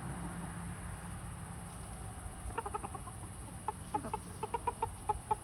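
Rooster giving a run of short, rapid clucks, starting about two and a half seconds in: his food call to the hens after finding something to eat. Before it a faint low rumble fades away.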